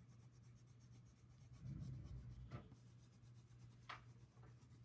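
Yellow coloured pencil scribbling back and forth on paper, faint and scratchy, over a steady low hum. A soft low bump comes about two seconds in, and a couple of light ticks follow.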